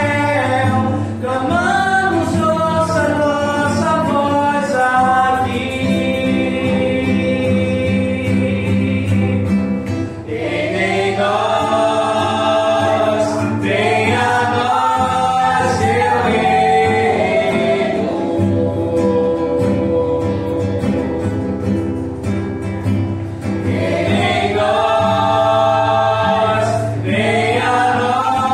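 Voices singing a Christian worship song together, accompanied by acoustic guitar.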